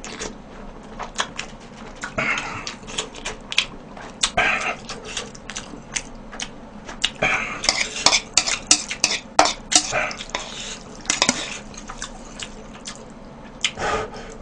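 Chopsticks clicking and scraping against a bowl while noodles are eaten close to the microphone, with short bursts of slurping and chewing between the clicks.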